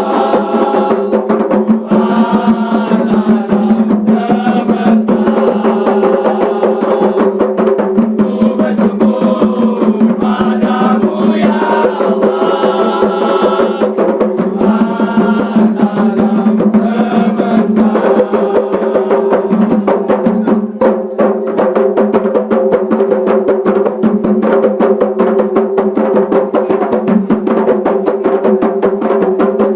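Music: chant-like singing over a steady drone and busy, continuous percussion.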